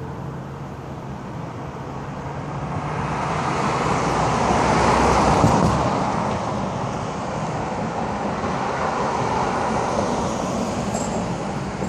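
Road traffic: a vehicle passes close by, swelling to its loudest about five seconds in and fading, with more traffic rising again near the end.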